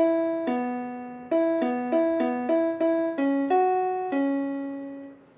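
Casio SA-77 mini keyboard playing a single-note melody in a piano voice: about ten quick notes alternating E and B, then C sharp, F sharp, and a long held C sharp near the end. Each note starts sharply and fades away.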